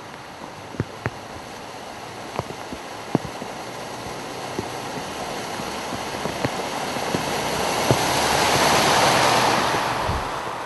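Pickup truck driving through deep floodwater, its tyres throwing up a rushing spray that grows louder as it approaches and peaks as it passes, about eight to ten seconds in. A few sharp ticks are scattered through the sound.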